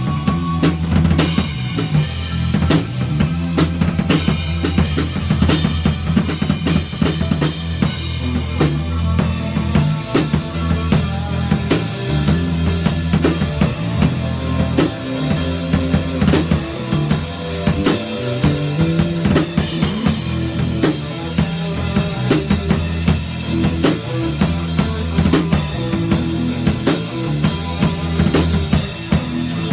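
Improvised band jam: a drum kit driving with kick and snare under electric guitars playing through amplifiers.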